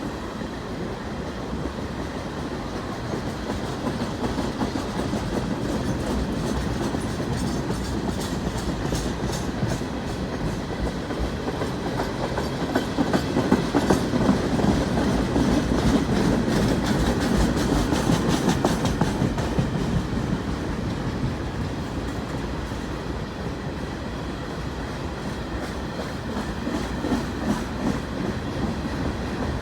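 CN train rolling past, its railcar wheels clicking over the rail joints in a continuous clickety-clack over a steady rumble. It grows louder toward the middle, then eases off.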